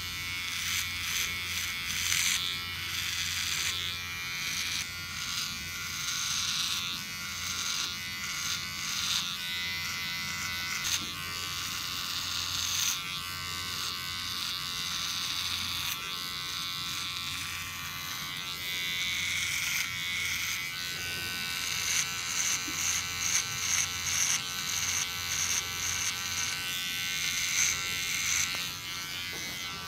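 Electric hair clippers running with a steady buzz, cutting hair in short strokes that come quicker near the end.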